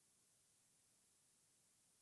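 Near silence: only a faint, even digital hiss after the music has ended.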